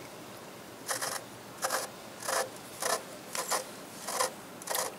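A socket ratchet clicks in seven short rattling strokes about two-thirds of a second apart, the first about a second in. It is unscrewing the plug over the oil filter in the sump of a Ural motorcycle's engine.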